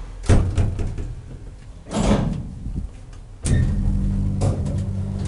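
KONE hydraulic elevator doors closing with a sudden clunk and then a sliding rush. About three and a half seconds in, the hydraulic pump unit starts abruptly with a steady low hum.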